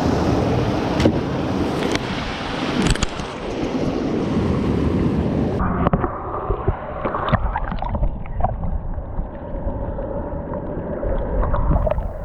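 Rushing creek water with wind buffeting the microphone and a few sharp handling knocks. About halfway in the sound cuts abruptly to a duller, more muffled rush with scattered knocks.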